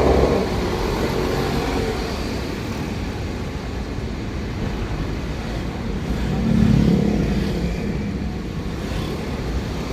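Daihatsu Gran Max engine heard from inside the cabin through an aftermarket SUOS 'ngorok' exhaust, giving a steady low, growling rumble. The rumble swells louder for about a second two-thirds of the way through.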